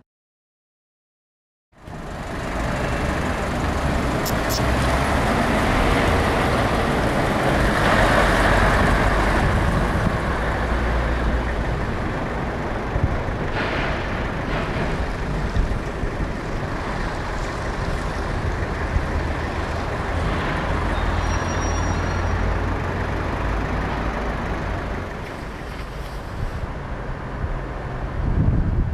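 Heavy diesel trucks driving slowly past, a steady engine rumble with tyre and road noise, loudest a few seconds in as one pulls a flatbed trailer by; it starts abruptly after a short silence.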